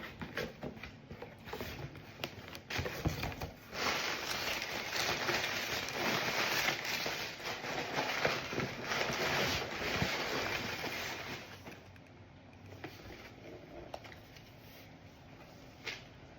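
Packaging being handled and opened: scattered knocks and clicks, then several seconds of steady rustling that dies down about twelve seconds in, leaving only a few faint clicks.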